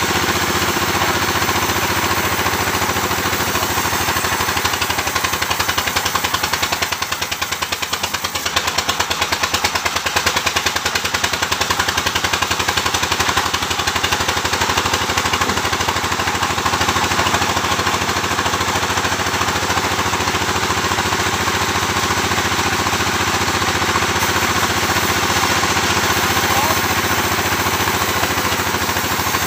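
Engine-driven sawmill machinery running steadily, with a fast, even thudding pulse like a hard-working engine. The level dips briefly about seven seconds in, then picks up again.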